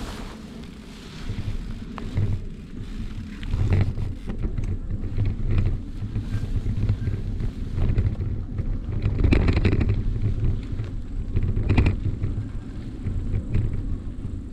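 Wind buffeting the microphone of a bicycle-mounted action camera as the bike rolls along a bumpy grassy dirt track, a rumbling that swells and falls. Now and then a sharp knock or rustle from the ride stands out, the loudest about nine and a half seconds in and again near twelve seconds.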